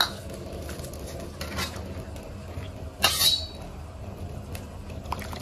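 Metal kitchen utensils on cookware: a clink at the start, then a short, sharp squeak about three seconds in as the metal ladle is pressed against the glass bowl of blanched bok choy in water. A steady low hum runs underneath.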